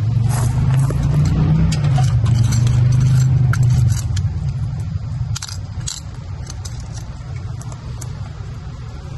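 Keys jangling and clinking in short bursts, over a low hum that fades about four seconds in.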